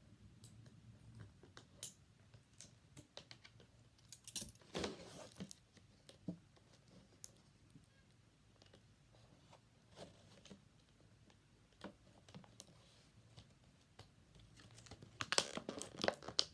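Small plastic doll packaging being handled: scattered light clicks and rustles, a short crinkle about four to five seconds in, and a busier stretch of crinkling and tearing near the end.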